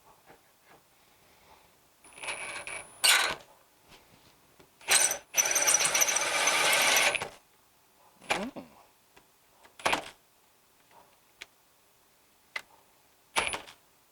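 Power drill run in short bursts, the longest about two seconds, with a thin high whine, and clicks and knocks between the runs; the owner thinks something is wrong with the drill.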